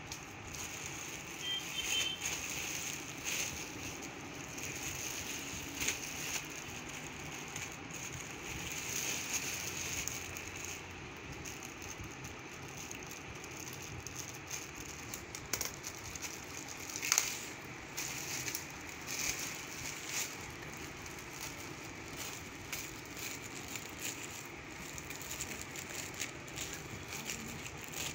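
Clear plastic packaging bag crinkling and rustling as it is handled and cut open with scissors, with irregular crackles and one sharper snap about two-thirds of the way through.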